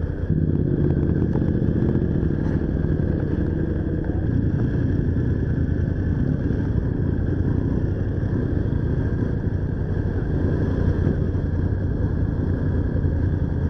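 Motorcycle engine running steadily at low speed as the bike moves off and rides through town streets, heard through a helmet-mounted camera.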